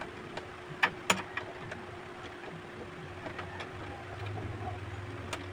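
A few sharp clicks and taps, the loudest pair about a second in, followed by faint ticks, from handling and working the parts of an old rusted door knob. A steady faint hum runs underneath.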